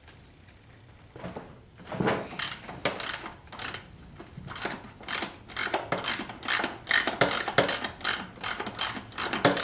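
Hand ratchet wrench clicking in quick repeated strokes, starting about a second in and going on at roughly two strokes a second.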